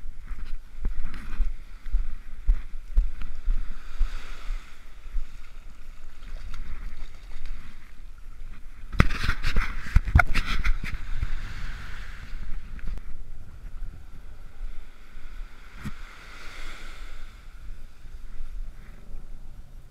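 Wind buffeting the microphone over small waves washing up on a sandy beach, with a cluster of knocks about nine to eleven seconds in.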